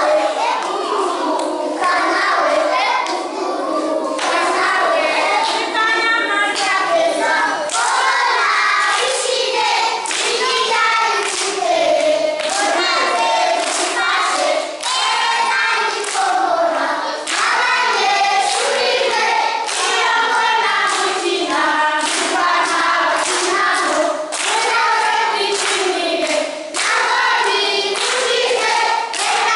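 A group of young children singing together in chorus and clapping their hands along with the song.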